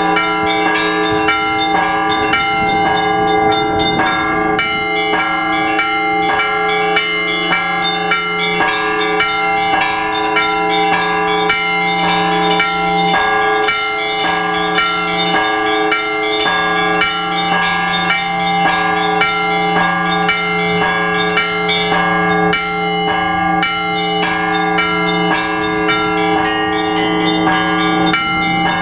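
Orthodox church bells rung by a bell ringer in a full peal. Smaller bells strike quick, rhythmic patterns, about two strokes a second, over the sustained hum of larger bells.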